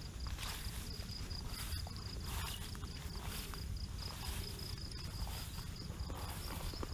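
Insects trilling steadily in a high, slightly pulsing tone, over a low rumble.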